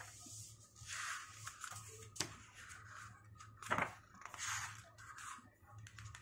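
Paper pages of a book rustling and flapping as they are turned by hand: a series of short rustles, the loudest a little before four seconds in.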